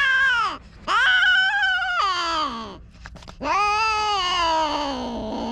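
Stray cats mating, with long drawn-out caterwauling yowls: three of them, each rising and then falling in pitch, the last sliding down and fading toward the end.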